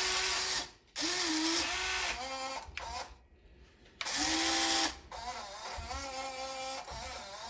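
Electric motors and metal worm gears of a 1:20 all-metal CAT 330D L RC excavator whining in several short runs that start and stop as the boom, arm and bucket move. The pitch changes from one run to the next.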